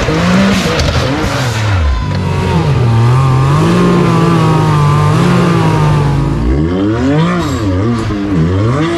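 Side-by-side UTV engine revving, its pitch rising and falling, then swinging up and down quickly several times near the end.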